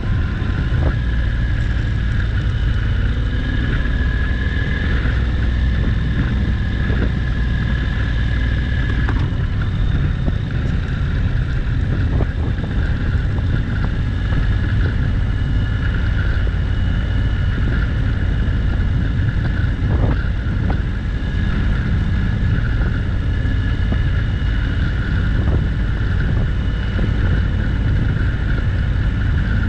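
Honda NC750X motorcycle's parallel-twin engine running steadily at road speed, mixed with wind noise on the microphone.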